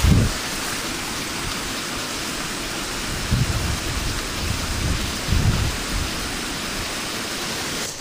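Wind on the microphone: a steady, even hiss with a few low buffets, a strong one right at the start and weaker ones about three and a half and five and a half seconds in.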